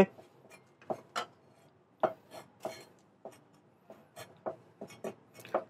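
Kitchen knife cutting spring onions on a chopping board: a dozen or so irregular light taps.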